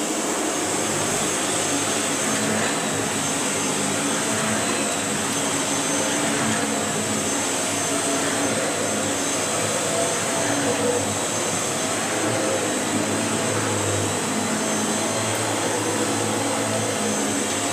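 Shark HV390UK corded upright vacuum cleaner running steadily on its thick-pile carpet setting, with a high whine over the motor's noise, its motorised brush roll working on carpet.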